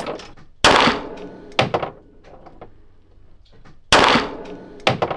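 Four shots from a Laugo Alien 9 mm semi-automatic pistol, fired as two pairs a little under three seconds apart. Each shot is a sharp crack with a short echoing tail.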